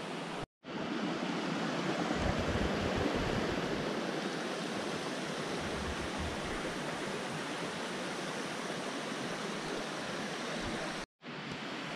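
River rushing steadily, an even wash of flowing water with no other distinct events. The sound drops out to silence briefly about half a second in and again near the end.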